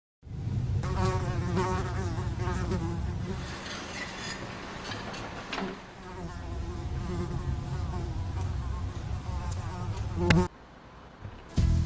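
A fly buzzing loudly, its pitch wavering as it moves, cut off about ten seconds in by a sharp smack.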